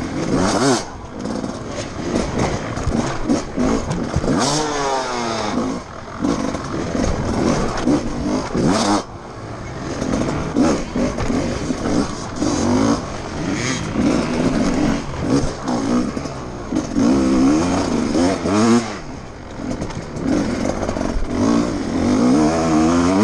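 GasGas enduro motorcycle engine heard close up from the rider's helmet, revving hard and easing off again and again, its pitch climbing and dropping in repeated sweeps through the run.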